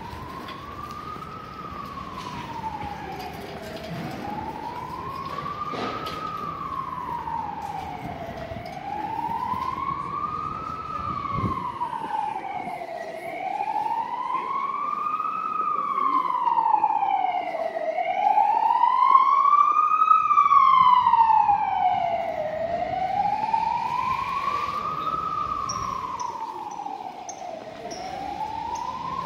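Emergency vehicle siren wailing, its pitch sliding slowly up and down about every five seconds. It grows louder towards the middle and then eases off a little.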